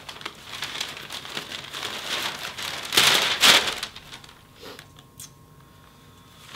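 Newspaper pages rustling and crinkling as they are turned and folded, with the loudest burst about three seconds in, then only faint rustles.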